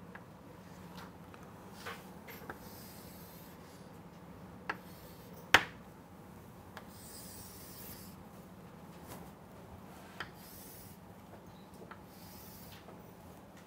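Chalk drawing on a blackboard: faint scratchy strokes and sharp taps as lines and hatching are drawn. The loudest is a single crisp tap about five and a half seconds in.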